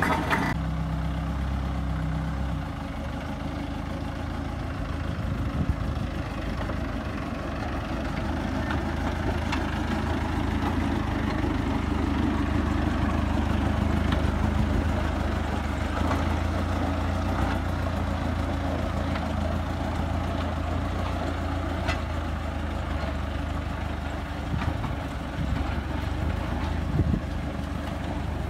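The four-cylinder Perkins 4.270 diesel engine of a 1935 Baguley 2 ft gauge locomotive running steadily as the locomotive moves along the track.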